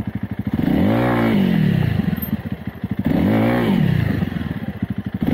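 Honda CRF300L single-cylinder engine pulsing at idle, then revved up and falling straight back twice, about a second in and again past the middle, with a third rev starting at the end: clutch pops, the revs dropping as the clutch is let go and the rear wheel spins.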